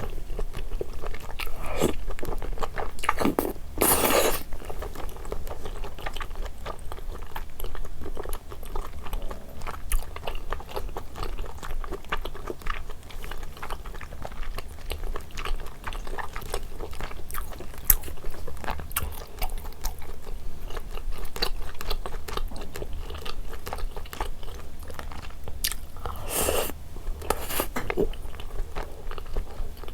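Close-miked eating of spicy rosé braised chicken with thick Chinese glass noodles: steady wet chewing and biting with many small clicks, and a few louder noisy bursts about four seconds in and twice near the end.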